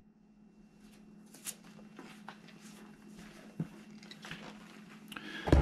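Packaging being handled: a cardboard box opened and its contents taken out, with light rustles and small clicks and a louder thump near the end, over a faint steady low hum.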